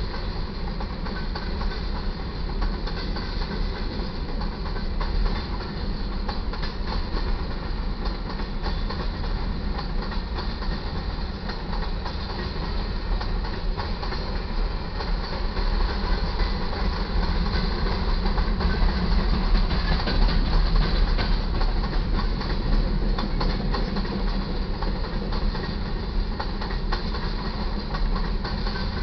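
Freight cars of a grain train rolling through a crossing: a steady rumble of wheels on rail with a fast clickety-clack over the joints, growing a little louder past the middle.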